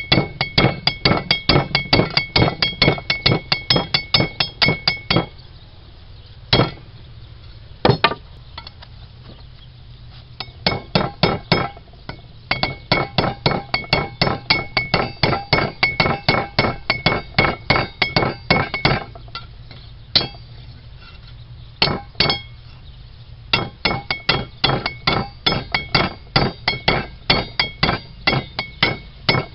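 Blacksmith's hammer striking hot rebar on an anvil in quick runs of about four to five blows a second, each blow ringing, with a few pauses broken by single strikes. This is the forging of the rebar's end to flare it out for an arrowhead socket.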